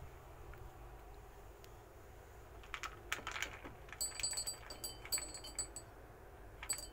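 Dry dog kibble poured from a small plastic tub into a square ceramic dish, the hard pieces landing as a quick patter of small clicks and clinks. A few scattered clicks come first, then the main pour about four seconds in lasts nearly two seconds.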